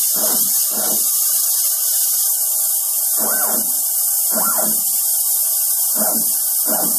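Stepper motors of an IGUS drylin delta robot whining through six short jogged moves, each about half a second and rising then falling in pitch as the arms speed up and slow down, in three pairs. Under them runs a constant loud hiss.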